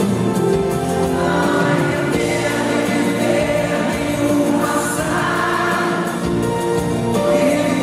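Live pop ballad performance: singing over band accompaniment, with a full sound of several voices together.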